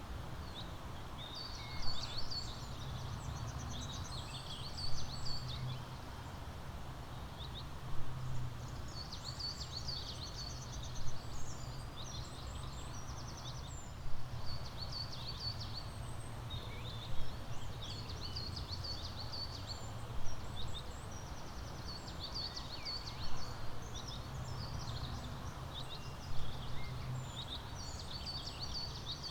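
Several small birds chirping and trilling in short, busy bursts over a steady low background hum. A brief louder sound, often doubled, comes back about every three seconds.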